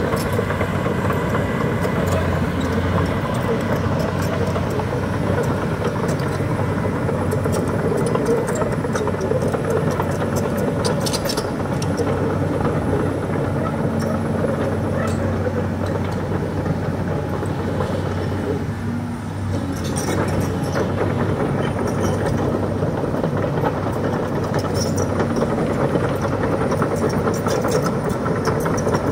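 Hydraulic excavator's diesel engine running steadily while the machine works, easing briefly about two-thirds of the way through, with a few short clicks over it.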